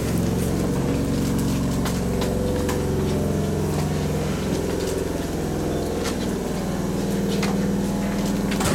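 Under-floor auxiliary machinery of a standing Hankyu 2300 series electric train running with a steady mechanical hum, with a few faint clicks on top.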